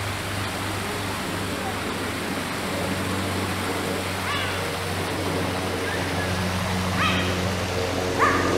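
Cheetah giving short, high chirping yelps, one about four seconds in and two more near the end, each a quick sweep in pitch. Under them runs a steady low hum with a rushing hiss.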